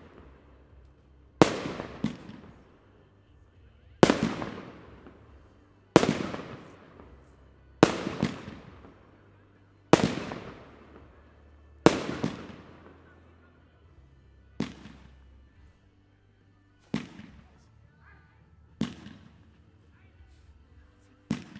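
Aerial fireworks going off in a steady sequence: a sharp bang roughly every two seconds, ten in all, each trailing off in a long echo. The last four bangs are weaker.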